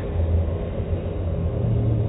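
Automatic car wash equipment running: a steady low rumble.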